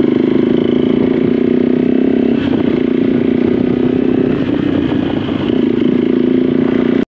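Motorcycle engine running steadily under way, with the sound cutting out for an instant near the end.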